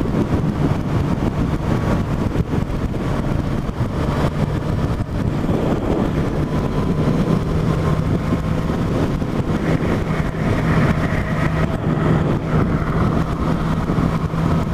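Yamaha FZ8's inline-four engine running steadily as the motorcycle is ridden, under a constant rush of wind and road noise. The engine note rises slightly about seven seconds in.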